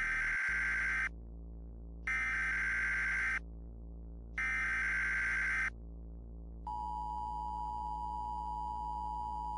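Emergency Alert System header tones: three harsh digital data bursts of about a second each, then, about seven seconds in, the steady two-tone EAS attention signal begins, over a low steady hum.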